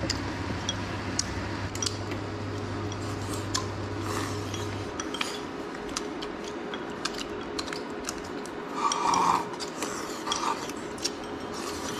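Chopsticks clicking and tapping against porcelain bowls during a meal, many short scattered clinks. A steady low hum runs underneath and stops about five seconds in.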